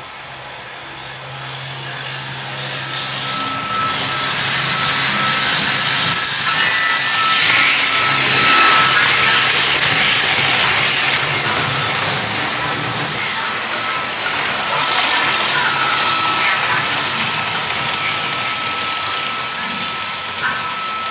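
Märklin HO model ICE 4 train running on its track and passing close by. The rolling and running noise builds over the first few seconds, is loudest as the train goes past, then eases a little, with a thin steady whine above it.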